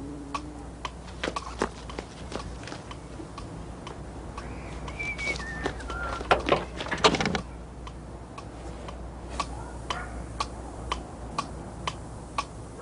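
Cartoon wall clock ticking steadily, about two ticks a second. About five seconds in come three short falling whistle-like notes, then a louder clatter.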